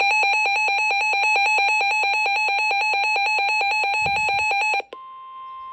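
Weather radio alarm: a rapid electronic beeping, about eight beeps a second, for nearly five seconds. Then comes a single steady tone, the NOAA Weather Radio 1050 Hz warning alarm tone that precedes a warning message.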